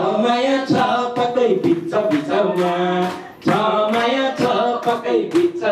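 A man singing into a microphone, holding long notes that glide up and down, with short breaks between phrases.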